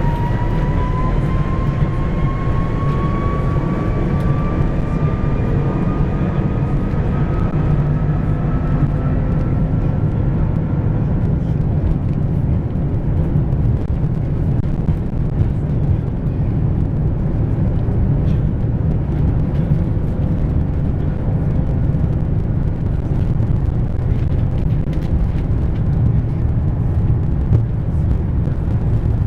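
Airbus A330-300 jet engines at takeoff thrust: a whine rises in pitch over the first several seconds as the engines spool up, then blends into a loud, steady rumble of the takeoff run.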